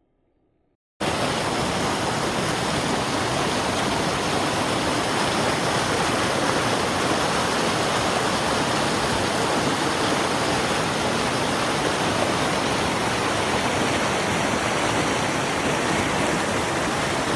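Rushing water of a stream or waterfall, a loud steady rush that cuts in suddenly about a second in.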